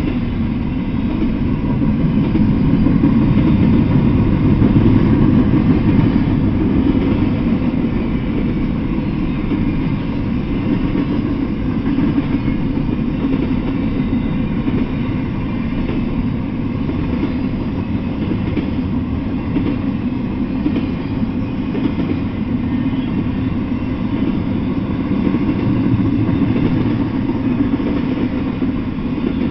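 Double-stack intermodal freight train passing: steel wheels of the loaded well cars running on the rails in a steady, low, even noise that swells slightly a few seconds in and again near the end.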